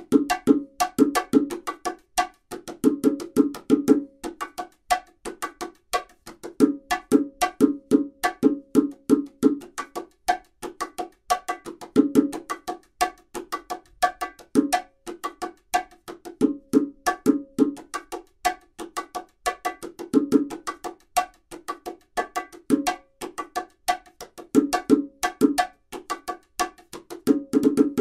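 Pair of Tycoon ash-wood bongos fitted with new Remo Skyndeep heads, played with bare hands. A fast, continuous stream of finger and palm strokes, broken into repeating phrases of ringing open tones.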